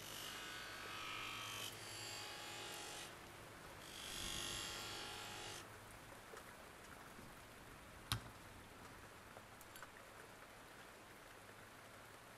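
A small motorised tool running in two spells, the first about three seconds and the second about a second and a half, with a high-pitched hiss, followed a few seconds later by a single sharp click.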